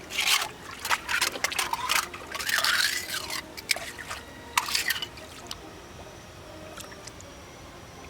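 Shallow seawater splashing and sloshing in a string of bursts over about the first five seconds, then dying down to a faint trickle.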